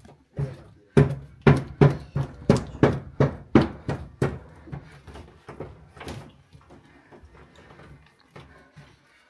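Wooden paddle beating thick halva in a metal cauldron: a run of heavy knocks about three a second, growing weaker and more irregular after about four seconds.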